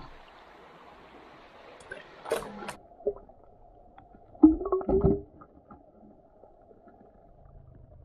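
Shallow river water running over stones. A few seconds in, the sound cuts to a dull, muffled underwater sound as the camera is submerged. Sharp knocks follow, then a louder cluster of knocks and rumbling scrapes about four and a half seconds in, as the platform leg's plastic foot is worked against the riverbed stones.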